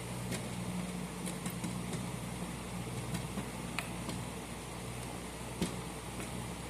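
Steady low hum with a scatter of small clicks and taps from handling and fitting a fire alarm pull station; the sharpest click comes about five and a half seconds in.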